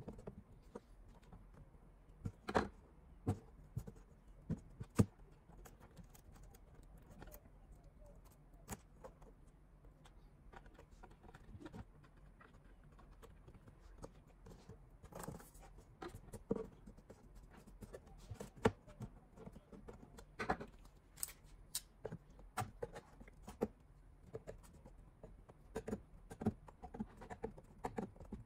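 Hand tools working at the broken edge of a particleboard drawer: a wood chisel prying and scraping along the edge, with scattered knocks and clicks as tools and loose pieces are handled and set down on the bench. Several sharper knocks come in the first few seconds, then many small clicks and scrapes.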